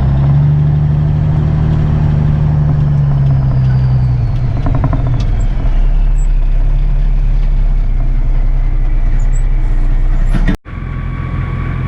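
Old combine harvester running steadily under harvest load, a loud, even machine hum. Just under a second before the end, the sound cuts out abruptly and comes back slightly changed.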